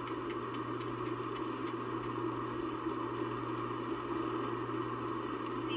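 Steady road and engine noise inside a moving car's cabin, with a run of light, evenly spaced ticks in the first two seconds.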